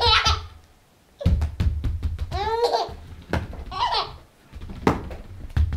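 A baby laughing in short high-pitched bursts, three times, with dull thumps in between.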